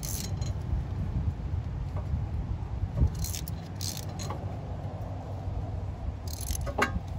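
Light metallic clinks and rattles of hand tools working a rear brake caliper: a Torx bit turned in the electric parking brake's spline while the caliper piston is pushed back, with a single knock about three seconds in. A steady low rumble runs underneath.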